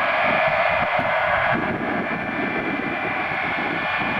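Boeing 707's four jet engines running steadily as the airliner taxis, a continuous rush with a high whine riding on it.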